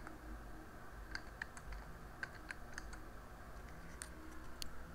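Computer keyboard typing: a string of irregular key clicks as a short word is typed.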